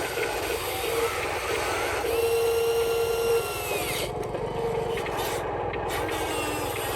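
Small electric motors of radio-controlled construction models whirring, with short steady whines that fall away about four seconds in.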